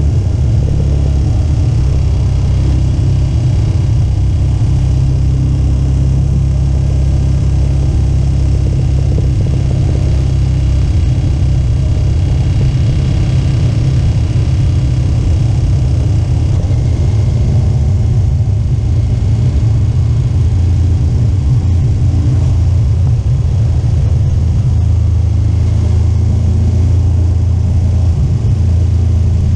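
KTM 1290 Super Adventure S motorcycle's V-twin engine running steadily at cruising speed, with wind noise rumbling over it. The engine note shifts a little about two-thirds of the way through and again near the end.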